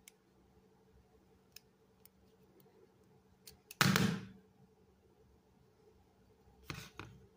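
Wire-bending pliers and orthodontic wire giving a few faint metallic clicks as the wire is bent. About four seconds in there is a louder brief knock with a short swish, and two smaller knocks near the end.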